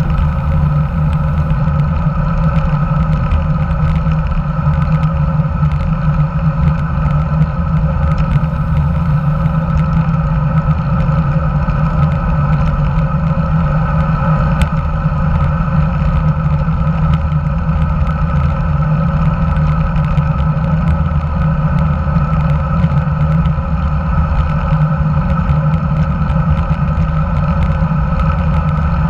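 Steady wind rush and road rumble picked up by an action camera mounted under the handlebars of a road bike while riding along, with a strong low rumble throughout.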